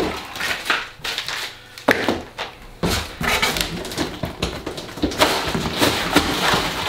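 Cardboard packaging crinkling and crunching as pieces are pulled out of a furniture box. It comes in irregular bursts, with a few sharper knocks about two, three and five seconds in.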